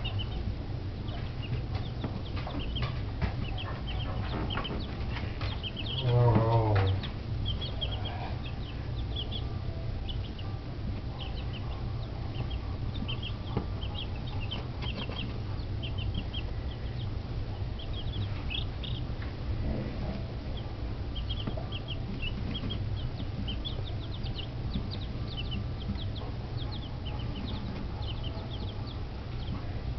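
A brood of week-old chicks peeping continuously, many short high cheeps overlapping one another. About six seconds in comes one brief, louder, low wavering sound.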